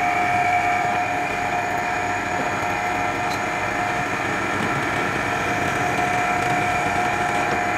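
Bench drill press running with a steady whine, its small bit boring into a block of wood.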